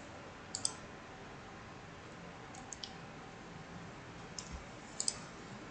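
Computer mouse clicks: a handful of short, sharp clicks spread over a few seconds, some in quick pairs, over faint room hiss.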